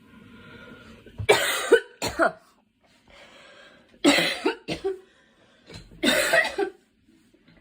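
A girl coughing in three loud bouts about two seconds apart, each of two or three quick coughs, with a breath drawn in before each bout.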